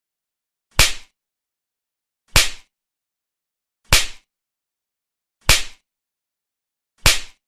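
Slap sound effect: a sharp hand slap, as on a face, repeated five times about one and a half seconds apart with dead silence between.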